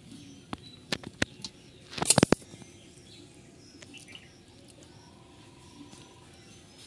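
Steel serving spoon clinking and scraping against a steel bowl and plate while curry is ladled out: a few light clicks, then the loudest clatter about two seconds in.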